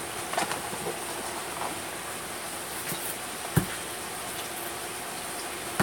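Gloved hands picking up and handling the wooden-handled high-voltage probes, making a few light knocks and one dull thump about three and a half seconds in, over a steady background hiss. The probes are not yet live, so there is no electrical buzz or crackle of burning.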